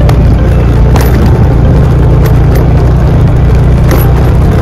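Vehicle driving over a rough, rutted dirt track: a loud, steady low rumble with a few short knocks from the bumps.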